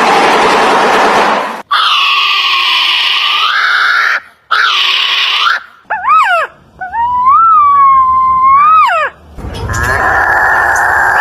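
A run of strange bird calls, one clip after another. Harsh rasping screeches come first, then whistled notes sliding up and down, and a steady held tone near the end.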